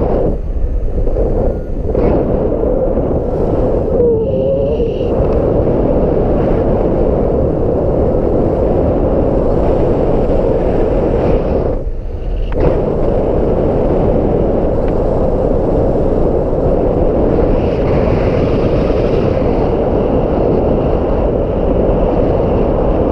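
Strong wind buffeting the microphone: loud, continuous low rumbling noise that eases briefly twice, once about a second in and again around twelve seconds in.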